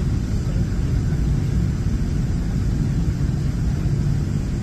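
Steady low rumble of an airliner cabin as the plane taxis slowly.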